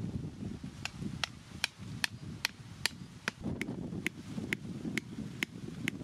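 A thin wooden stake being driven into the ground with blows from a small axe: sharp, evenly spaced knocks about two and a half a second, starting about a second in.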